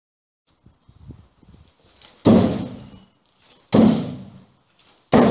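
Three heavy thuds about a second and a half apart, each followed by a short echo: thrown vz. 58 military bayonets striking a board target in a bare concrete hall.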